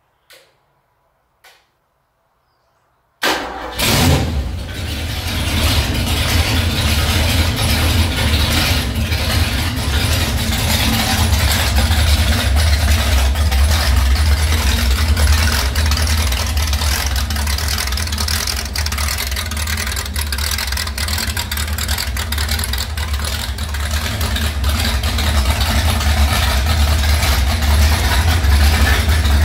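A few faint clicks, then the rebuilt Ford 390 FE big-block V8 starts about three seconds in and settles into running steadily.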